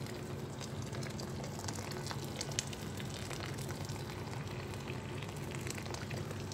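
Water poured in a thin steady stream into a stainless-steel stock pot of boiling soup, splashing and bubbling with a crackling hiss, over a steady low hum.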